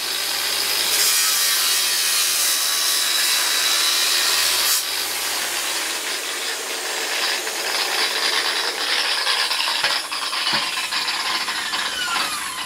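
Angle grinder cutting into an energised welder transformer's secondary windings, the wheel grinding steadily through insulation and metal. A low mains hum sits under the first few seconds. A couple of small electrical pops come about ten seconds in, and near the end the grinder's pitch falls as it runs down.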